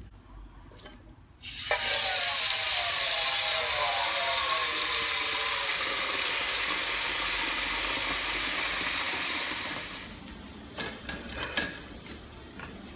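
Water from a kitchen tap running into an aluminium pot, filling it for about eight seconds before the tap is shut off. Then a few knocks.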